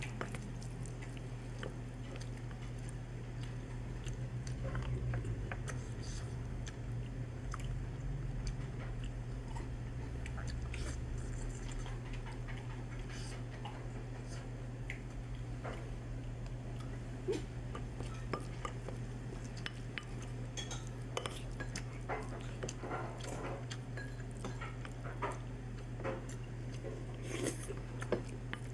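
Wooden spoon scooping fried rice in a ceramic bowl, knocking and scraping against it in scattered soft clicks that come more often in the second half, over a steady low hum.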